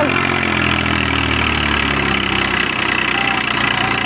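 Massey Ferguson 241 DI tractor's three-cylinder diesel engine running steadily with a loaded sugarcane trolley hitched behind. Its note dips slightly partway through.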